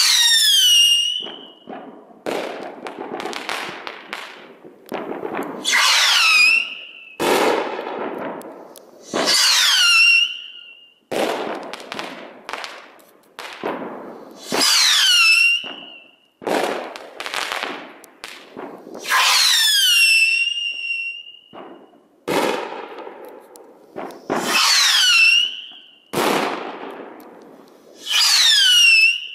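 Seven handmade 10 mm whistling rockets launched one after another, about every four to five seconds. Each motor's whistle starts high, falls in pitch and levels off for about a second, and is followed by sharp bangs and crackle as the titanium or star-shell heads burst.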